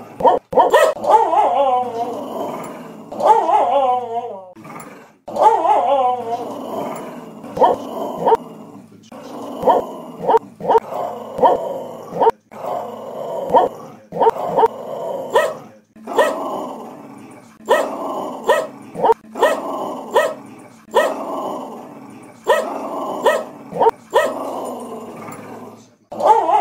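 Blue heeler (Australian cattle dog) 'singing' with a tennis ball in her mouth: long runs of wavering, pitched growly whines that rise and fall, broken every second or so by short, sharp barks.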